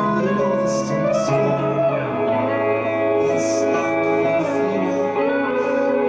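Live psychedelic band music led by guitar, with long held notes over a low bass that steps down about two seconds in, and a wavering melodic line above.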